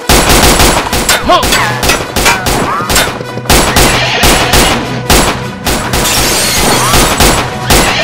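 A rapid barrage of revolver gunshot sound effects, many shots a second with a few brief lulls, over background music.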